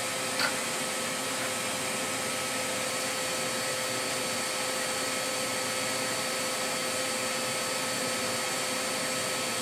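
Steady mechanical hum and hiss with a few faint constant tones, and a light click about half a second in.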